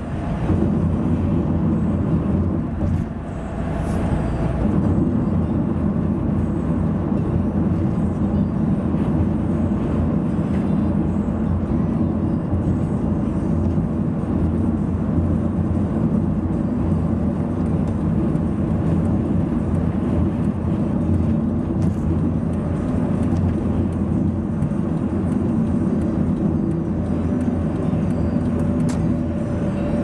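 Steady road noise of a car at expressway speed, heard inside the cabin: a constant low drone of tyres and engine.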